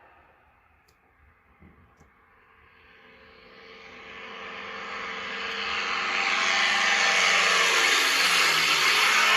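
Aircraft fly-by sound effect from a 3D surround-sound demo, played through the Poco X3 phone's stereo speakers. It rises out of near quiet to loud, and its engine tone glides downward in pitch near the end as it passes.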